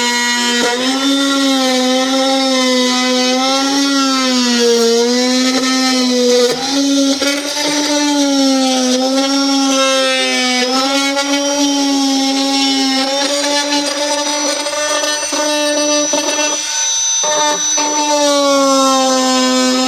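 Handheld high-speed power tool running while it trims plastic from the speaker opening of the headbar: a steady whine whose pitch sags and recovers as the bit bites in, stopping briefly near the end before starting again.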